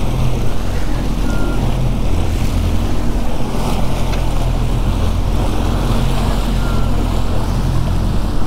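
Twin Yamaha 150 outboard motors running steadily in gear: a constant low hum with several engine tones, under the rush of churning wake water and wind on the microphone.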